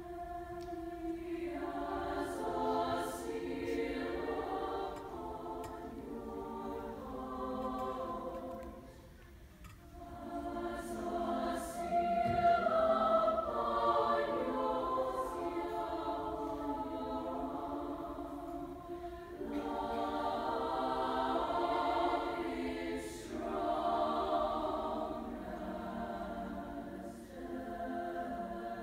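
A large girls' choir singing, entering right at the start, with brief breaks between phrases about nine and nineteen seconds in.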